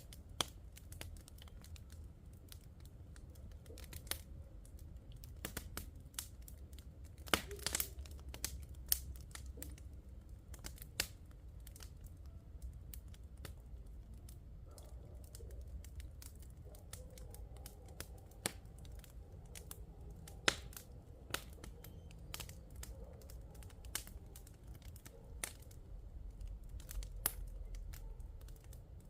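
Wood bonfire crackling, with irregular sharp pops and snaps over a low rumble.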